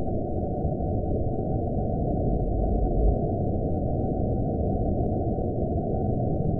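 Horror-film style ambience: a steady, dark low rumble of noise with no high end, and a faint thin high tone held beneath it.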